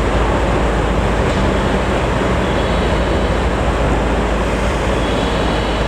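A train running with a steady, loud rumble and rushing noise that holds even throughout.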